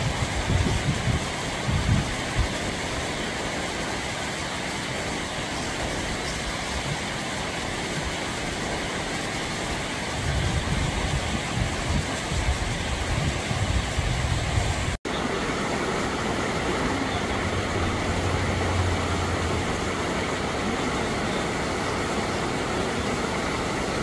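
Mountain stream rushing over granite rocks in small whitewater cascades: a loud, steady water roar, with low buffeting at the start and again from about ten to fifteen seconds in, and a split-second break about fifteen seconds in.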